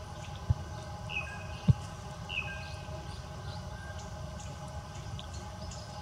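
Forest ambience with a steady low hum and hiss. A bird gives two short chirps about a second apart, and two dull low thumps come in the first two seconds, the second being the loudest sound.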